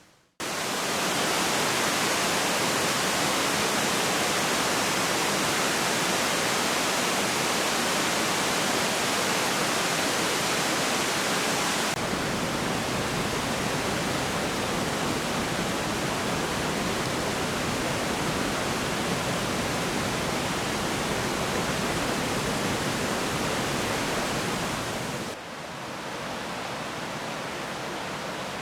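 Ryuzu Falls, a cascade waterfall pouring down a rocky slope, rushing steadily. The rush shifts slightly in tone about twelve seconds in and turns a little quieter near the end.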